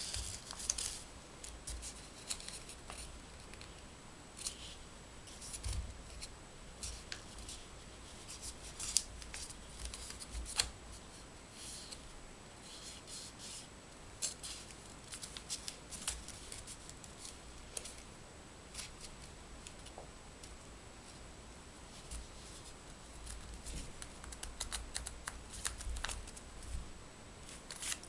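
A sheet of printed origami paper being folded and creased by hand: irregular crisp crinkles, rustles and sharp crease clicks, with soft low thumps of the model against the table.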